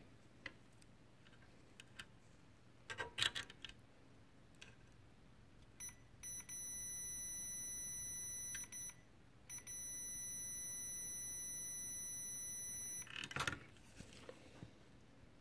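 Multimeter continuity beeper sounding a steady high beep in two stretches of about three seconds each with a short break between, with the probes across a blue dipped tantalum capacitor: the capacitor is passing current when it shouldn't, a shorted tantalum. A few clicks of the probes being handled before and after.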